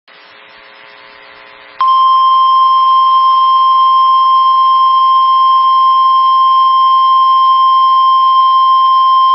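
NOAA Weather Radio 1050 Hz warning alarm tone: one loud, steady high beep that cuts in about two seconds in after faint background noise. It signals that a warning message is about to follow.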